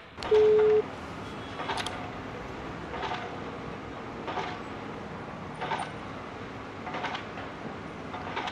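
A short, loud, steady electronic beep just after the start, then soft short sounds repeating about every second and a quarter.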